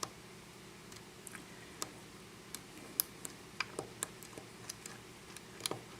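A lock pick probing the pins of a Russwin six-pin pin-tumbler lock: sparse, irregular small metallic clicks and ticks.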